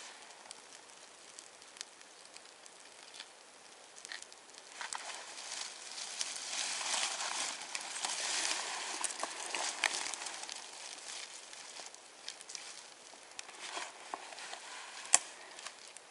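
Small birch-bark and twig kindling fire crackling and hissing as it catches, with scattered small pops. The crackling grows louder in the middle, and there is one sharp crack near the end.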